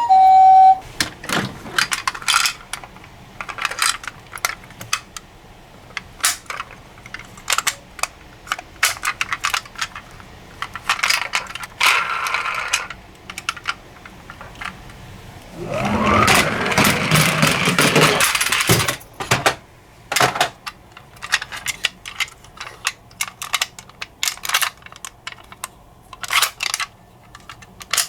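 A two-tone hi-lo siren cuts off in the first second, followed by a string of light clicks and clatters of small die-cast toy cars being handled and set down. About two-thirds of the way in, a toy car rolls down a slope for a few seconds with a rising rumble.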